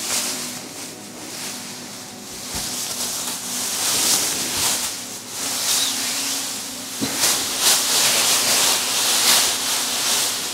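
Plastic wrapping crinkling and rustling in repeated swishes as it is pulled off a collapsible photography background.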